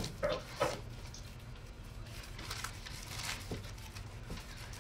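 Quiet pause: faint room noise and low hum, with a few soft rustles or clicks in the first second and a couple of faint ticks later.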